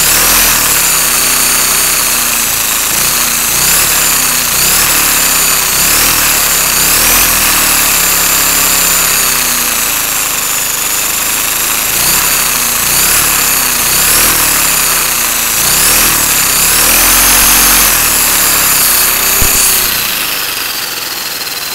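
LEGO Power Functions M motor spinning at high speed right next to the microphone, a whine that sounds like a supercharger, its pitch rising and falling again every second or two as the speed is varied. It dies down near the end as the motor slows.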